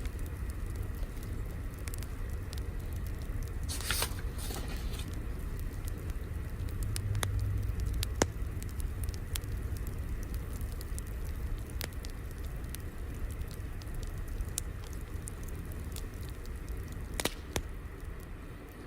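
Crackling fire: scattered sharp pops and snaps over a steady low rumble. There are two brief louder hissing bursts, about four seconds in and near the end.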